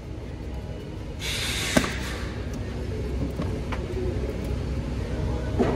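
Rubber air intake tube being worked loose and pulled off a truck engine's throttle body: a rustling scrape, then a sharp snap about two seconds in as it comes free, and another knock near the end. A steady low rumble runs underneath.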